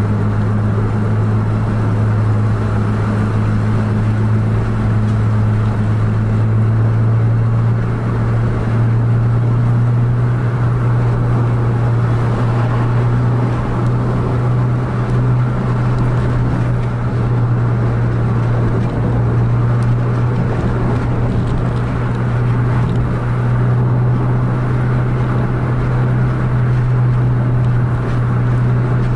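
Steady drone of a car's engine and tyres heard from inside the cabin at highway speed. The engine note rises a little about ten seconds in as the car speeds up.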